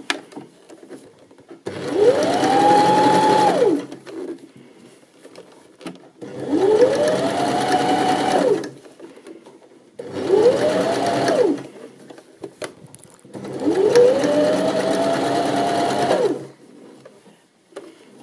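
Janome 725s sewing machine stitching a knit cuff onto a sleeve in four short runs, each with a whine that rises as the machine speeds up, holds, then falls as it stops. Quieter pauses come between the runs while the fabric is repositioned.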